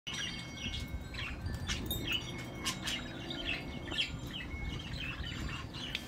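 Budgerigars chirping softly: short, scattered chirps over a low steady hum.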